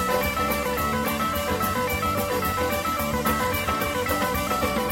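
Instrumental background music: guitar over a steady drum beat.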